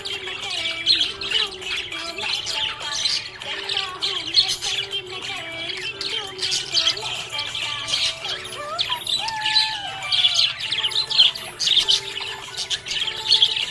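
Budgerigars chirping and squawking in a dense, rapid chatter that keeps going without a break.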